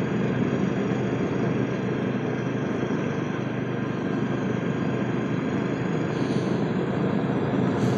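Royal Enfield Classic 350's single-cylinder engine running steadily at riding speed, picked up by a microphone inside the helmet, with wind rushing over it.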